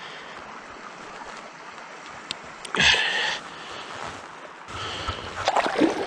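Water splashing in shallow river water as a large lake sturgeon thrashes at the bank, with one louder splash about halfway through and more splashing near the end.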